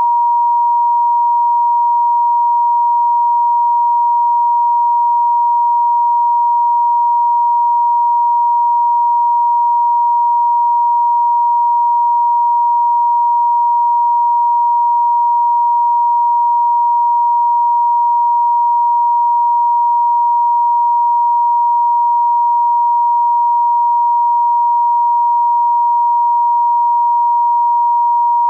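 Italian telephone off-hook warning tone (howler) sounding from a receiver left off the hook: one steady, unbroken high tone at a single pitch, meant to alert the user that the phone has been left off the hook.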